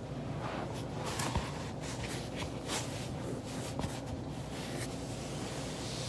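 Foam roller being handled and set down on carpet, with clothing rustling and a scatter of soft knocks and clicks, the sharpest about a second and a half in, over a steady low hum.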